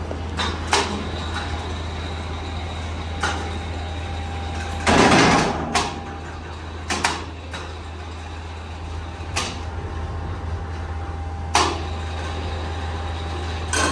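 Factory machinery running with a steady low hum, with sharp knocks every second or two and one louder burst of rushing clatter about five seconds in.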